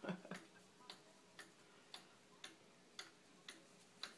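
Hundred-year-old Black Forest cuckoo clock ticking steadily, about two ticks a second, its movement running properly. A brief bump sounds at the very start.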